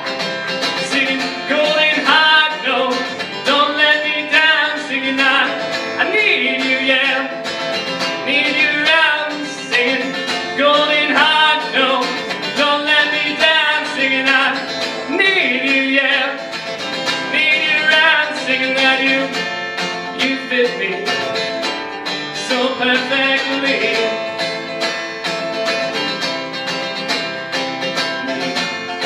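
Live acoustic guitar with singing: a song performed with wavering, sustained vocal lines over the guitar throughout.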